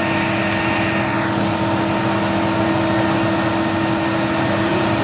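Steady mechanical drone of aircraft ramp machinery beside an Airbus A330-200F freighter, with several steady hum tones. A higher whine falls away about a second in.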